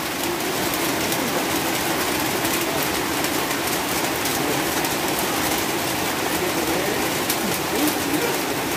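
Heavy rain falling steadily: a dense, even hiss flecked with small sharp drop hits.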